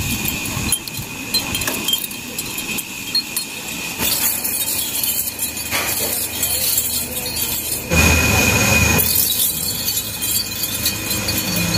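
Steel chain curtain and its dangling metal tags jingling and clinking as the chains are handled and swept by hand.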